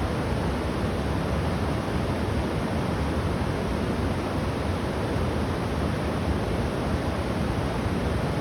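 Steady rushing of a flooded river, an unbroken noise with no pauses or distinct events.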